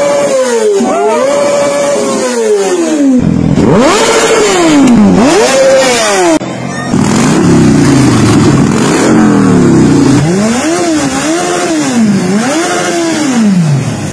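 Motorcycle engines revved in turn while standing. First a Kawasaki ZX-25R's 250 cc inline-four, its pitch rising and falling in repeated high revs. Then, after a cut, a Harley-Davidson Forty-Eight's 1200 cc V-twin runs lower and is blipped several times, each rev rising and falling.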